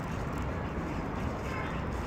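Steady low rumbling background noise outdoors, without distinct events.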